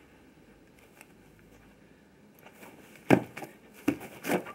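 Scattered red-hot fragments of a burst ferrocerium lighter flint crackling: quiet at first, then a sharp snap about three seconds in and two smaller snaps near the end.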